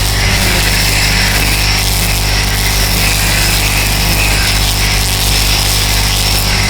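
DeWalt DCST922B 20V brushless string trimmer running steadily at speed, its line cutting weeds.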